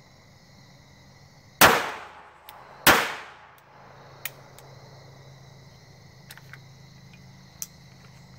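Two 9mm pistol shots from a CZ P-07, about a second and a quarter apart, each with a long echoing tail, followed by a few light clicks. The rounds are WD-40-soaked ammunition and the pistol fails to cycle, which the shooter puts down to WD-40 soaking into the powder.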